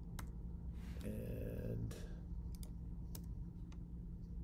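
Scattered computer keyboard keystrokes: a handful of separate sharp clicks spread over a few seconds, with a brief soft rushing sound about a second in, over a steady low hum.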